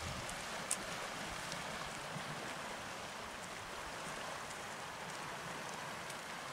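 Small waves of a calm sea washing against a rocky shore, a steady soft hiss of water, with a few faint clicks.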